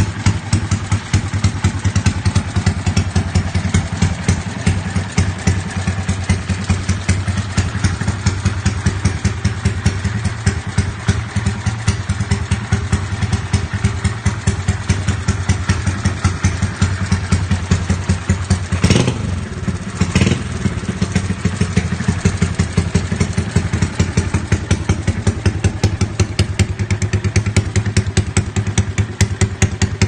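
Honda Wave S 125's single-cylinder four-stroke engine idling loudly through an aftermarket PMC conical exhaust pipe, with a steady, evenly pulsing beat and no revving. Two sharp knocks about a second apart come a little past the middle.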